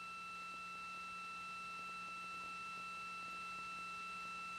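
A faint, steady electronic tone at one high pitch, with a fainter low hum beneath it, carried on the launch broadcast's audio feed.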